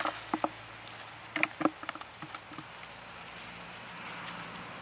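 Scattered light clicks and rustles of hands at work in low plants and soil at a pond's edge, bunched in the first two seconds, over a faint steady outdoor hiss.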